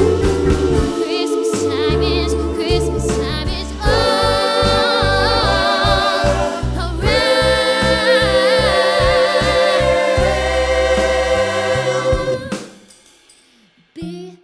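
Choir singing a Christmas song over a rhythmic bass accompaniment, ending on a long held chord that stops about twelve seconds in. A few short faint sounds follow near the end.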